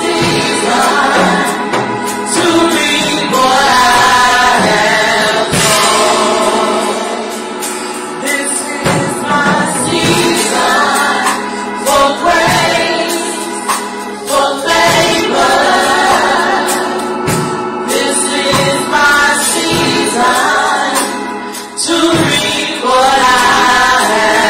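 A church praise team of several singers singing a gospel worship song together, with instrumental accompaniment and percussion hits.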